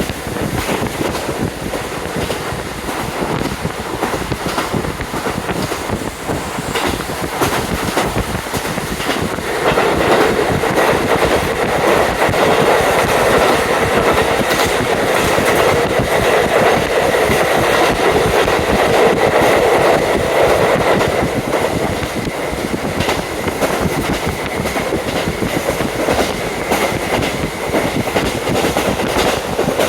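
JR KiHa 40 diesel railcar running, heard from inside the carriage: wheels clacking over rail joints, with the diesel engine's drone and wind rushing in through an open window. The noise grows louder for about ten seconds in the middle, then eases off.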